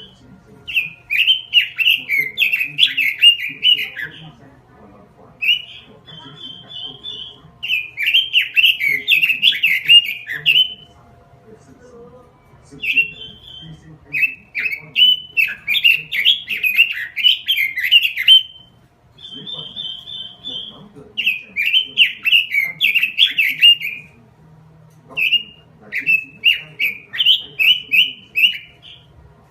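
Pekin robin (red-billed leiothrix) singing loudly: five rapid warbling phrases of two to four seconds each, with short pauses between them filled by brief high trilled calls.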